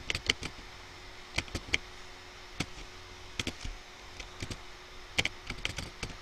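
Computer keyboard being typed on: irregular runs of sharp key clicks with short pauses between them.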